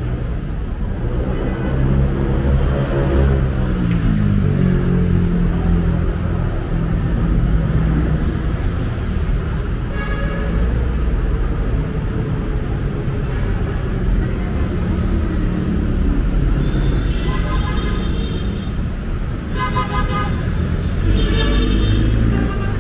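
Street traffic: a steady rumble of vehicle engines, with one engine close by rising and falling in pitch in the first few seconds. A short horn toot comes about ten seconds in, and three more honks follow near the end.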